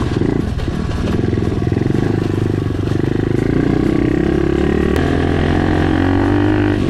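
Pit bike's small single-cylinder engine running under way, its pitch climbing as the revs rise about halfway through, then holding steady.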